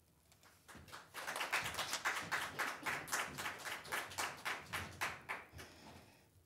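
A small audience applauding with hand claps; it starts about a second in, holds for about four seconds, then fades out near the end.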